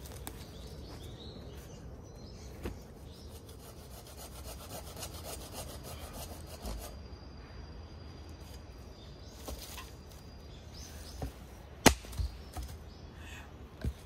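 Sticks of firewood handled on the ground, rubbing and scraping against each other, with a few sharp wooden knocks; the loudest knock comes about twelve seconds in.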